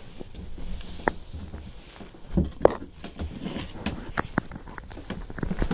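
Handling noise from a wooden locker cover over a sailboat's battery compartment being pulled up by hand: scattered knocks and clicks, the loudest cluster about two and a half seconds in.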